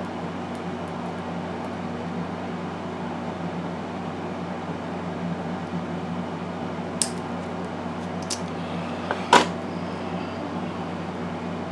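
A steady mechanical hum from a room fan or air conditioner, with a few small sharp clicks of plastic model parts and tools being handled on the workbench. There are three clicks in the second half, and the last one is the loudest.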